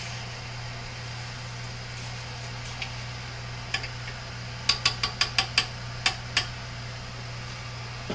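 Small hard objects clinking on a workbench: a few single clicks, then a quick run of about eight sharp clicks near the middle, over a steady low hum.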